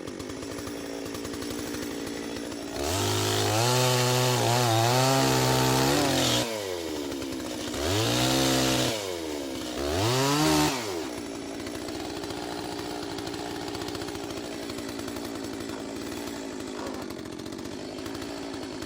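Chainsaw engine idling, revved up three times: once held for a few seconds, then two short blips, each dropping back to a steady idle.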